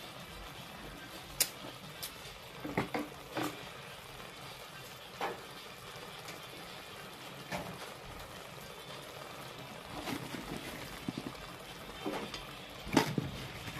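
Vegetable stew simmering in a stainless steel pot, a steady hiss, with a few short knocks of a wooden spoon against the pot early on. Near the end, fresh greens are dropped into the pot with rustles and a louder knock.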